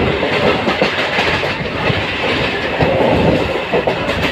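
Train running along the track, its wheels clattering over the rail joints in an irregular run of clicks over a steady rumble, heard from aboard the moving coach.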